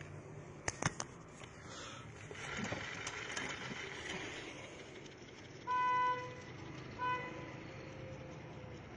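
Motorcycle front wheel spun by hand, turning a Yamaha YBR 125-style speedometer drive gear: a whirr that swells and fades, with a few clicks about a second in. A short loud pitched squeal about six seconds in, a shorter one a second later.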